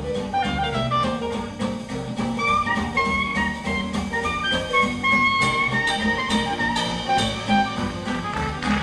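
Live Dixieland jazz: a clarinet plays a solo line over a steady beat from double bass, guitar and drums. The clarinet stops near the end.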